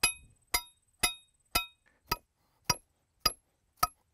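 Hammer blows on a 3/8-inch pointed driver rod, pounding a Ground Talon earth anchor into the ground: eight sharp metallic strikes, about two a second, each ringing briefly.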